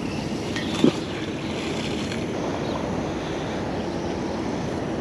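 Steady rushing outdoor background noise with a short knock just under a second in.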